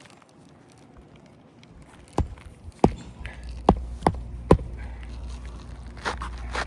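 Five sharp hammer blows, unevenly spaced, driving roofing nails into an asphalt shingle, starting about two seconds in, over a low rumble.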